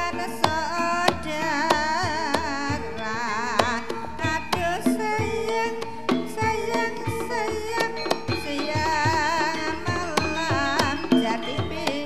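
Javanese gamelan music of the kind that accompanies ketoprak theatre: repeated kendang hand-drum strokes under a wavering high melody line and steady held tones.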